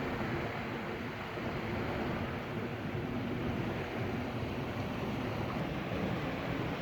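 Steady wash of waves breaking on a beach, with wind rumbling on the microphone.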